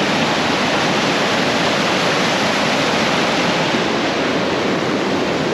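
Loud, steady rush of flowing water, an even roar with no change in level.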